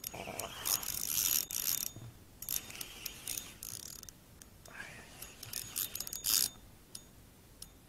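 Spinning reel cranked in fits and starts to bring in a hooked fish, its gears whirring and clicking in several bursts, loudest about a second in and again around six seconds in.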